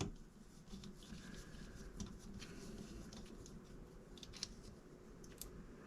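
Small metal clicks and knocks as the top half of a steel scope ring and its screws are taken off and set down, with one sharp knock at the start and faint scattered ticks after it.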